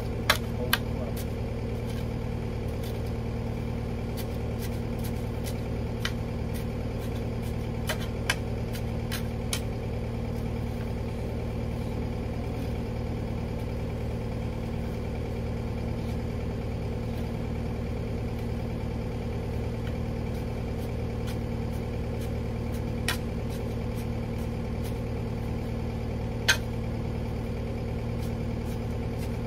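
An engine idling steadily, with a few sharp knocks now and then.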